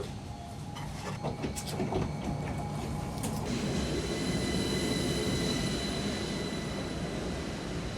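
A city rail car running, with a few clicks of the wheels over rail joints in the first few seconds, then a steady high squeal of the wheels from about three and a half seconds in.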